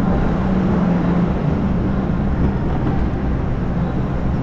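Steady vehicle running noise: a continuous low hum under a wide, even rushing noise, with no distinct events.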